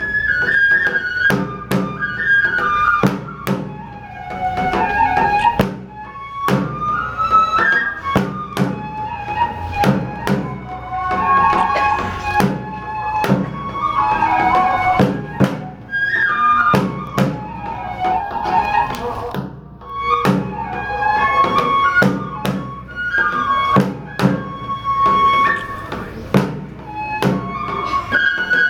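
Kagura festival music: a Japanese bamboo transverse flute plays a wavering, sliding melody over irregular, sharp drum strikes.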